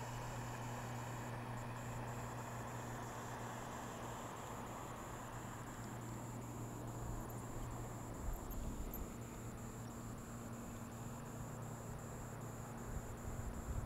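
Motorboat engine running with a steady low hum as the boat passes, under a haze of wind and water noise.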